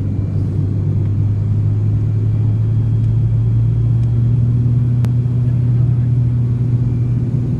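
Turboprop airliner's engine and propeller droning steadily in flight, heard from inside the passenger cabin as a low, even hum. A second, higher tone joins about three and a half seconds in, and there is a single brief click about five seconds in.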